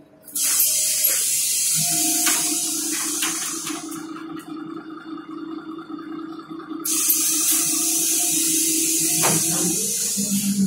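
Renault 12M city bus's pneumatic doors working at a stop: two long bursts of compressed-air hiss, the second ending with a knock, over a steady low hum from the bus.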